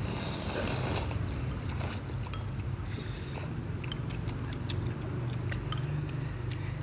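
Someone slurping noodles from a pot of spicy noodle soup, several noisy slurps in the first few seconds, then a few light clicks of chopsticks against the clay pot, over a steady low hum.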